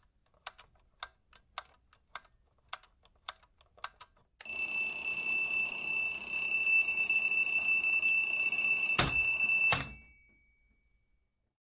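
Intro sound effects: a run of sharp clicks, about two a second, like keystrokes. Then a steady, high-pitched ringing, like an alarm bell, for about five seconds. It ends with two clicks and fades out.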